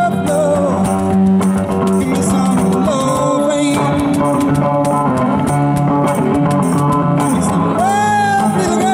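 A live busking band playing a funk-blues groove on electric guitar and electric bass through a small amplifier. Short sung phrases come in near the start and again near the end.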